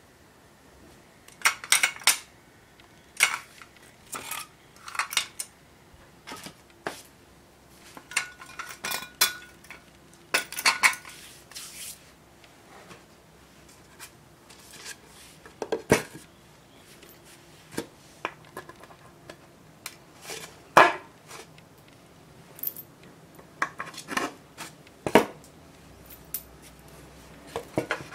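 Metal drill-stand parts, bolts and washers clinking and clanking as they are handled and set down on a concrete floor: irregular sharp knocks, some ringing briefly.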